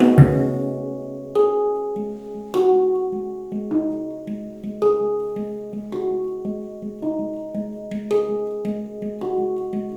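Handpan played by hand in a slow, meditative line. A strike rings out about every second or so, each note sustaining with clear overtones, over a soft low pulse of quieter taps. It opens with a heavier low strike after a quick flurry of notes.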